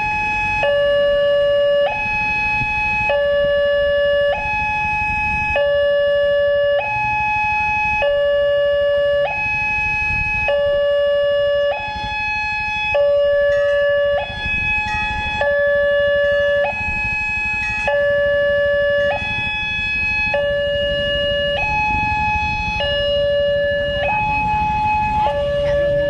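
Electronic two-tone warning alarm of a railway level crossing, sounding from the horn loudspeaker on the crossing post. The pitch steps steadily back and forth between a higher and a lower tone: the crossing is closed for an approaching train. A low rumble runs underneath.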